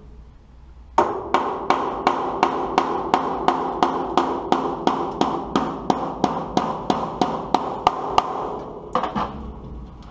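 A hand hammer tapping on the steel flange bearing unit and its mount on a lime spreader. It strikes steadily about three times a second, each blow ringing, then stops and gives two more blows near the end. The blows are driving the loosened bearing forward to take the droop out of the apron chain.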